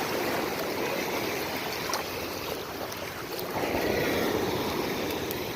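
Surf washing on a beach with wind buffeting the microphone, a steady rush that swells briefly about three and a half seconds in.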